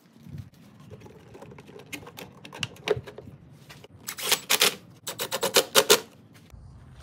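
Quick clicking of a hand driver tightening the worm-drive hose clamp on the intake air boot, faint at first and then loudest in two bursts near the end, several clicks a second.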